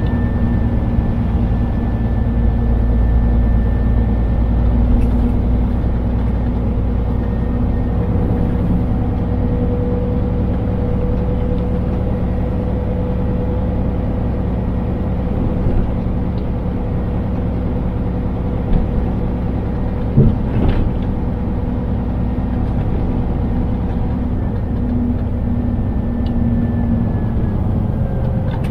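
Scania truck's engine and road noise heard from inside the cab while driving at steady engine speed, a low rumble with a few steady tones over it. A couple of short knocks come about two-thirds of the way through.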